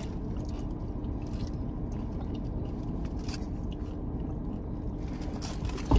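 Someone chewing food, with scattered soft mouth clicks and smacks, over a steady low hum.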